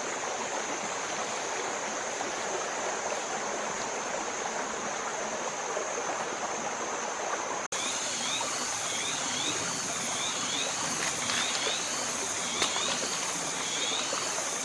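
Stream water running steadily, with a steady high whine over it. After a brief break about halfway through, small repeated bird chirps join in.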